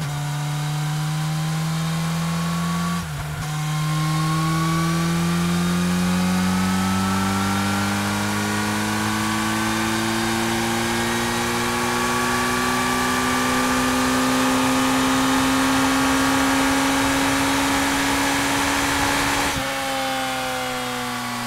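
Suzuki Hayabusa's inline-four engine pulling hard under full acceleration at high speed. A brief break comes about three seconds in, then the engine note climbs steadily for a long stretch as the revs and road speed rise. Near the end the throttle closes and the pitch drops.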